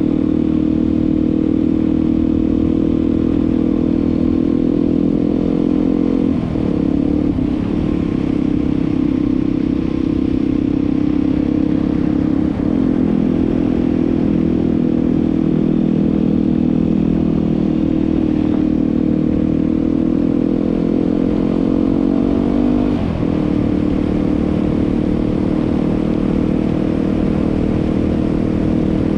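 Yamaha WR250R's 250 cc single-cylinder four-stroke engine running steadily under way. Its note dips and shifts briefly four times, about six, seven, twelve and twenty-three seconds in.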